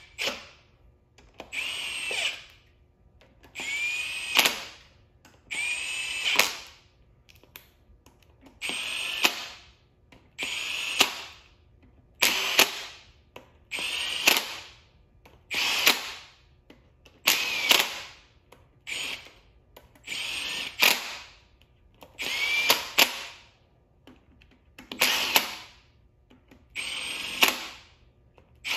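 Cordless drill/driver running the cam tray bolts down into a 2.0T TFSI cylinder head one at a time. There are about fifteen short runs, one every two seconds or so, each a brief whine that cuts off sharply as the bolt is run in.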